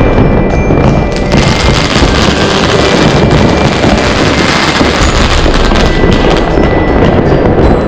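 Consumer fireworks batteries firing: rapid bangs and dense crackling, thickest from about a second in until near the end. Music with bell-like notes plays along.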